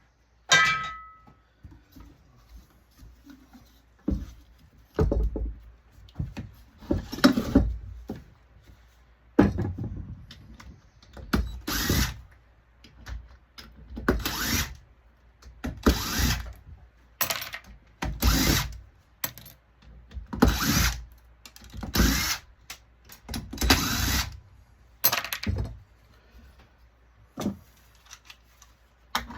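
Power drill run in repeated short bursts, about a dozen over the stretch, with brief pauses between them.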